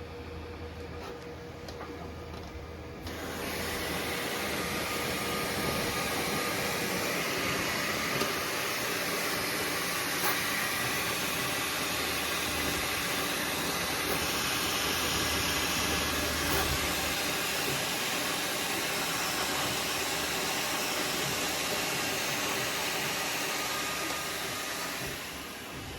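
Creality K2 Plus 3D printer's cooling fans coming on about three seconds in with a steady rushing hiss, then winding down near the end.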